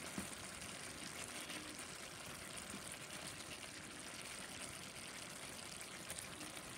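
Onion sauce simmering gently in a steel pan with pieces of salted dried fish laid in it: a steady, faint bubbling hiss.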